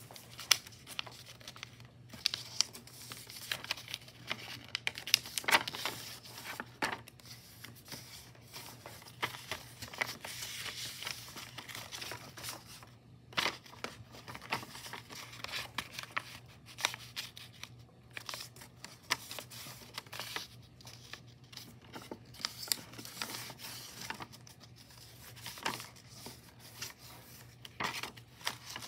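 A large sheet of white paper being folded and creased by hand on a desk: rustling and crinkling in short, irregular bursts with sharp crackles.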